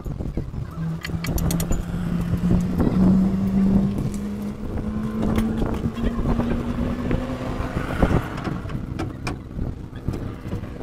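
An engine hums steadily, its pitch slowly rising over several seconds before it fades, over scattered light clicks and knocks with one sharper knock near the end.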